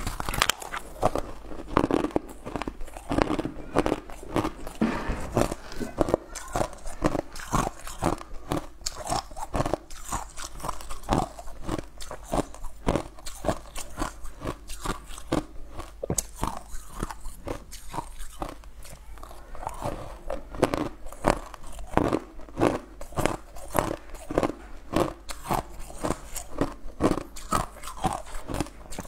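Chunks of ice bitten and chewed, picked up close by a clip-on microphone: a dense run of sharp, brittle crunches, several a second.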